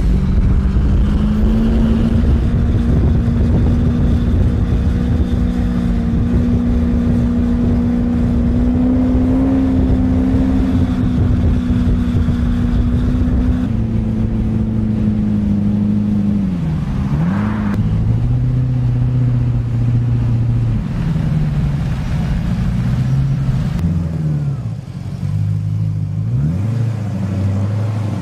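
A large V8 motorcycle engine running at a steady pitch for about the first half. After a change about halfway, the revs drop and climb back again several times.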